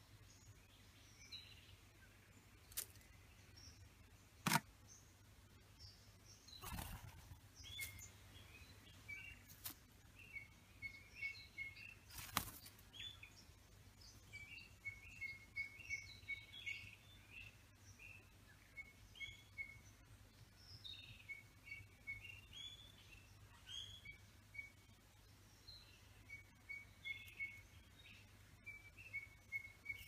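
Birds chirping with short, high calls, often in quick runs, throughout. A few sharp clicks stand out, the loudest about four and a half seconds in.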